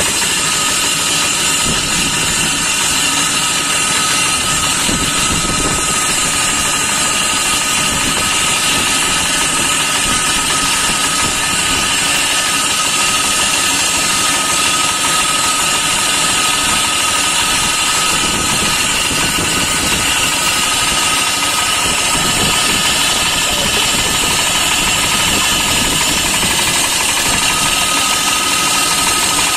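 Small engine of a wheeled concrete pipe-cutting saw running steadily at a constant level, with a steady high whine above the engine noise through most of it.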